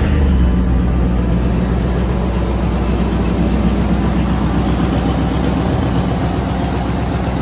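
Dodge Durango engine idling steadily just after being started, easing slightly in level, on freshly replaced spark plugs meant to cure its rough idle.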